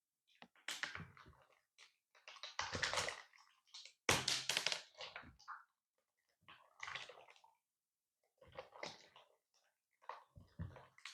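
Transparent slime mixed with candy being squished and worked by hand: irregular squishy bursts with small clicks and pops, coming every second or two with short pauses between.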